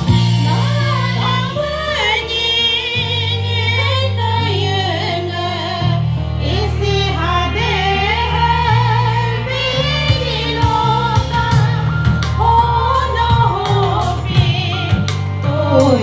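A song: a singer's wavering melody over held bass chords that change every couple of seconds.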